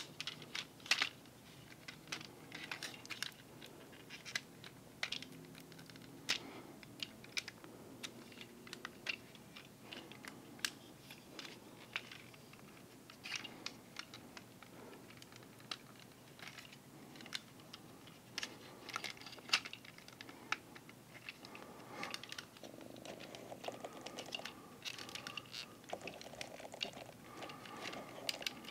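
Plastic Transformers Masterpiece action figure being transformed by hand: irregular sharp clicks and snaps of its joints and panels being moved and locked into place. A softer rustling runs through the last few seconds.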